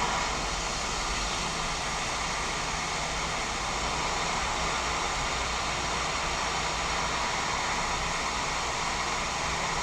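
Hot air rework station blowing a steady hiss of air, heating a chip on the laptop motherboard to melt its solder. It starts abruptly and cuts off near the end.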